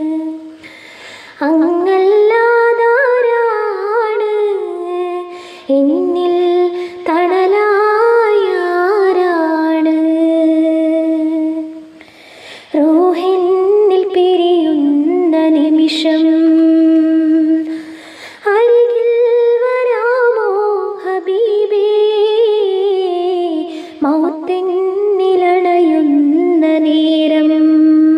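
A woman humming the melody of a Malayalam madh devotional song unaccompanied, without words, in long flowing phrases with short pauses for breath.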